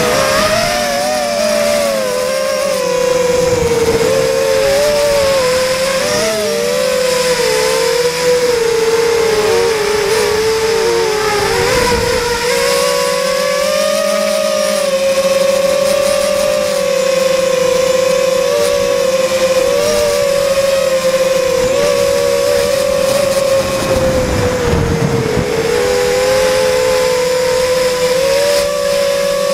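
Sunnysky 2300kv brushless motors on a 3S battery spinning 5x3x3 three-blade props, heard from the drone's onboard camera: a steady buzzing whine whose pitch wavers up and down with throttle. A couple of brief low rumbles come through around the middle and near the end.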